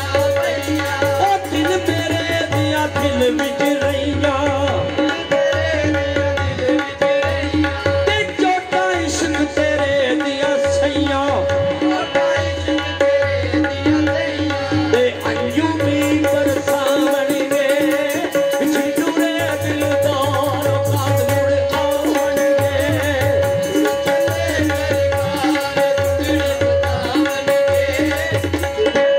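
Live Punjabi folk music: a hand drum playing a steady rhythm under a held drone note, with a man singing into a microphone.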